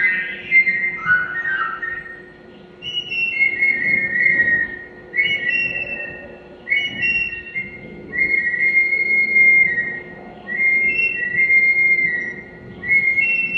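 Whistled tune: about seven short phrases of two or three held notes, each stepping down in pitch, with brief gaps between them. A faint steady hum runs underneath.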